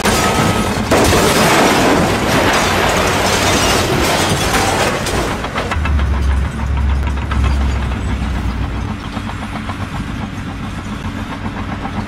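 Concrete structures collapsing in a demolition. A loud rushing crash lasts about the first five seconds, then gives way to a deep rumble with many small knocks of falling debris, which ease off near the end.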